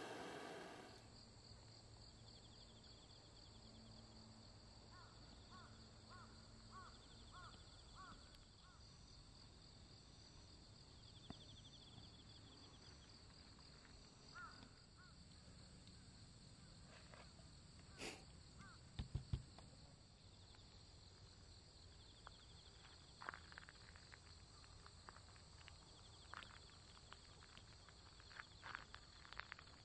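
Quiet outdoor ambience of insects: a steady, high-pitched trilling with fast pulsing chirps and a few short chirp series. A hiss stops about a second in, and a few faint clicks and knocks come in the second half.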